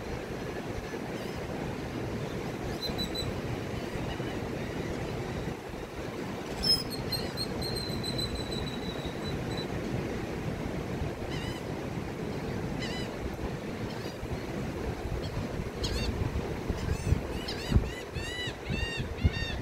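Steady surf breaking on a beach, mixed with wind, while gulls call overhead: a few scattered calls, then a run of repeated calls, about two a second, near the end. A short sharp sound stands out about seven seconds in.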